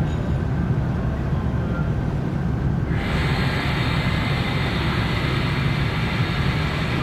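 Car ferry Osado Maru's engines and propeller wash making a steady low rumble as it manoeuvres off the quay. About three seconds in, a steady hiss joins and cuts off near the end.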